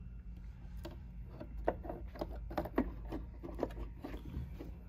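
Light, irregular clicks and taps of hands handling the plastic tow-mirror glass and housing while the glass is lined up on the actuator, over a steady low hum.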